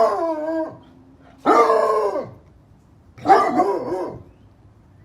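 A dog giving three drawn-out, howling barks, each about a second long and spaced about a second and a half apart, the pitch dropping at the end of each.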